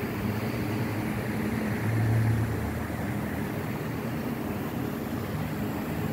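High-pressure mist fans running: a steady whir of fan blades and motors with a low hum, which swells briefly about two seconds in.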